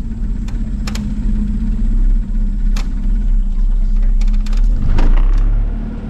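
Small outboard motor on a johnboat running steadily with the boat under way, with a few light knocks. About five seconds in, the engine note shifts.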